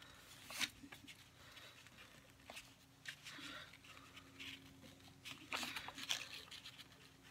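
Thick sheer ribbon rustling and crinkling as hands tie and adjust it into a bow, in short scattered rustles, sharpest about half a second in and again around six seconds in.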